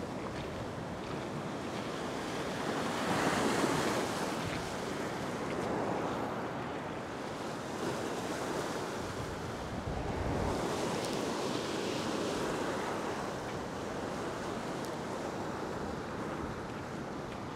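Ocean surf breaking and washing across a flat rock platform, with wind on the microphone. The wash swells louder about three seconds in and again around ten seconds in.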